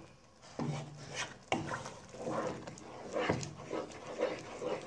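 Wooden spoon stirring and scraping against the pot through a thick, bubbling mixture of onions and eggs, with a few sharper scrapes along the way.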